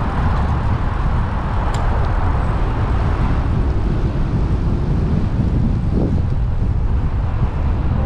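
Steady rush of wind buffeting the microphone of a bicycle rider moving along a paved path.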